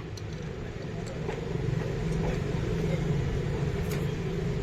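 A car engine running steadily, a low hum that grows a little louder about a second and a half in, with a few faint clicks over it.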